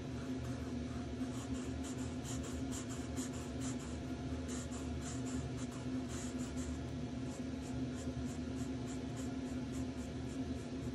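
Marker pen drawing on sketchbook paper: many short, irregular scratchy strokes over a steady low hum.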